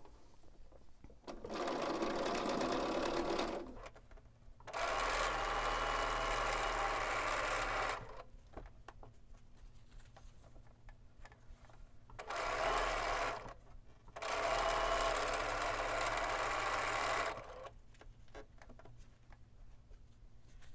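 Bernina B 770 Quilter's Edition sewing machine stitching quarter-inch seams in four runs of a few seconds each, one after another as pairs of fabric pieces are chain-pieced. Faint handling clicks fall in the short pauses between runs.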